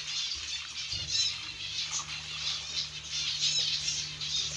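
Small cage birds chirping in an aviary, many short, high chirps overlapping, over a steady low hum.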